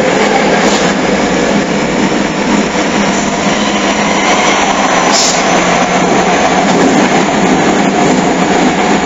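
Hokushin Kyuko 7000 series electric train, an unrenewed car with Mitsubishi GTO-thyristor VVVF inverter drive, running along the line: a steady rumble of wheels and traction equipment with a low hum, heard through a phone's microphone.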